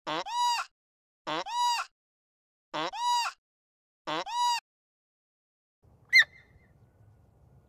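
An animal call repeated four times, about once every one and a half seconds. Each call is high and ringing, rising and then falling in pitch. After a pause comes a single short, sharp, higher-pitched call.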